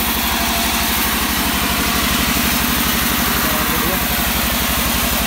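Band sawmill running: the engine driving it chugs steadily with a fast, even beat, over the hiss of the blade ripping lengthwise through a wangkal log.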